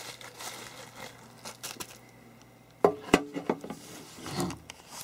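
Plastic bubble wrap rustling and crinkling as a small electronic display is handled in it, with a few sharp clicks and knocks about three seconds in.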